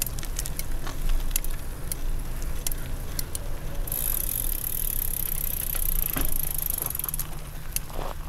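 Bicycle being ridden on a paved trail, heard from a handlebar-mounted camera: a steady low wind rumble on the microphone with scattered rattles and clicks from the bike.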